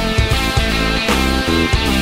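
Background rock music with heavy electric guitar and a steady beat.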